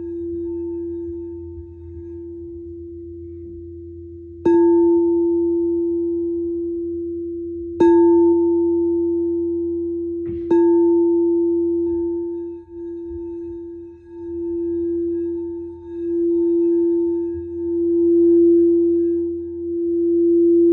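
A singing bowl, the 'heart' sound bowl, rings with one steady low tone and a fainter higher overtone. It is struck three times in the first half, each strike renewing the ring. After that the tone swells and fades in slow waves, about one every two seconds.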